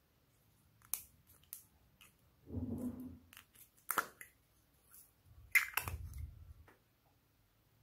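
Small plastic ladybug-shaped container being handled and opened: several sharp plastic clicks and snaps, the loudest about two-thirds of the way in, with duller rubbing and knocking of the plastic in hand twice between them.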